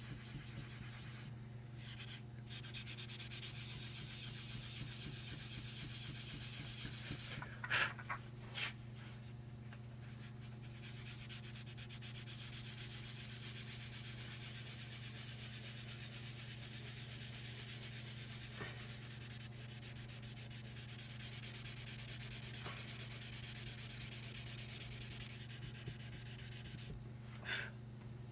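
Colored pencil shading on paper: a continuous scratchy rubbing of the pencil lead over the sheet, breaking off briefly a few times, over a steady low electrical hum.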